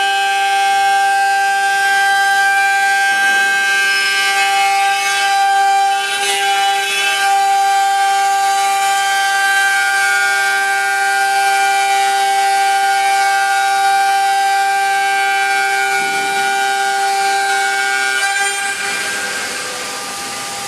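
CNC router's 4.5 kW water-cooled spindle cutting 25 mm MDF: a loud, steady high whine made of several even tones over a hiss of cutting. Near the end the whine weakens and a broader rushing hiss takes over.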